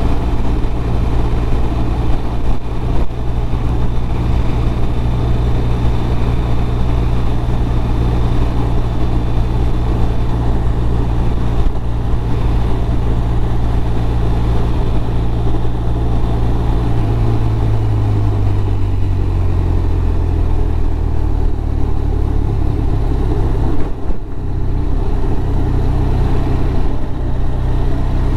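BMW R1200RT's boxer twin engine running at road speed under wind and road noise. Past the middle the engine note falls as the bike slows down, and near the end the sound briefly drops away.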